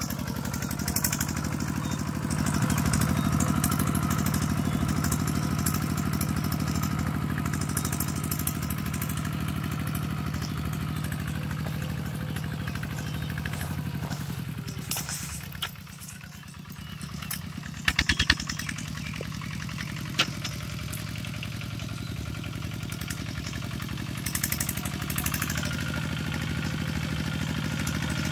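Kubota RT120 single-cylinder diesel engine on a two-wheel walking tractor chugging steadily while pulling a plough through the soil. The engine sound drops in level for a moment about halfway through, and a few sharp clanks come a couple of seconds later.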